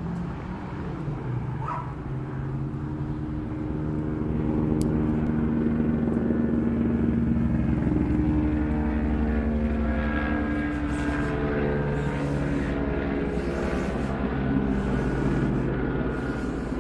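Helicopter flying low overhead, its rotor beating rapidly under the steady whine of its engine. It grows louder over the first few seconds, then eases slightly.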